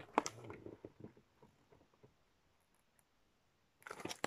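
Faint rustles and small clicks of a paper picture book being handled as it is held up and moved, in the first second or so and again briefly near the end.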